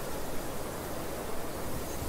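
Steady wind noise, with gusts rumbling on the microphone.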